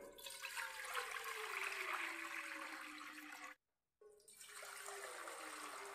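Water being poured into a stainless steel pot, with a faint tone that slowly falls in pitch. There are two pours, with a short break about three and a half seconds in.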